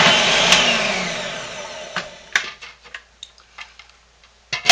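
Food processor motor spinning down after being switched off, with a falling whine that fades over the first second or two. Then clicks and clunks of the plastic lid and grating disc being handled and lifted off, with a loud knock near the end.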